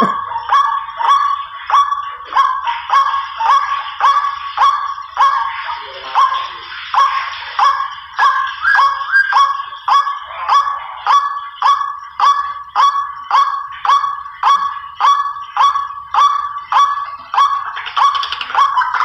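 White-breasted waterhen (ruak-ruak) calling: a harsh note repeated about twice a second in a steady, unbroken series, as played for a bird-lure recording.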